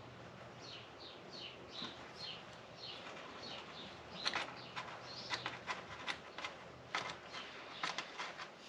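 Sharp, irregular metallic clicks of hand tools working a small stuck part on a rusty turn signal, loudest in the second half. Through the first half, short high chirps falling in pitch repeat about twice a second, like a small bird.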